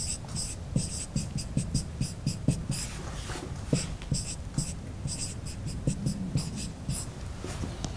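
Marker pen writing on a whiteboard: a quick run of short, high-pitched strokes with small taps as an equation is written out.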